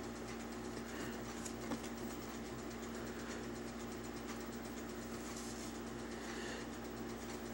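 Quiet steady hum of background noise, with faint rustles and a small click or two as a rope is folded and pulled through a knot.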